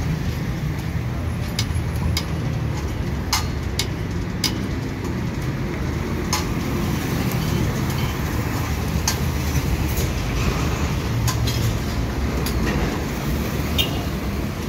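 Homemade steel scissor lift for motorcycles being raised by a hydraulic floor jack pumped by foot, with scattered sharp metallic clicks and clanks from the jack and frame. A steady low rumble runs underneath.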